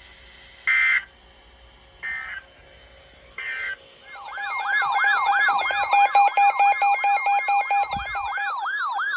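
Three short bursts of Emergency Alert System data tones, the end-of-message signal, about a second apart. Then a loud electronic alert tone warbles up and down about three times a second over a steady tone.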